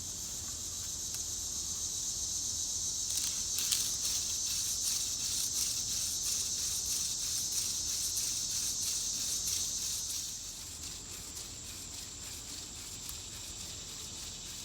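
Hand drill friction fire: a horseweed spindle spun back and forth between the palms, drilling into a tulip poplar fireboard, giving a scratchy rubbing that builds and stops about ten seconds in. Crickets chirp steadily behind it.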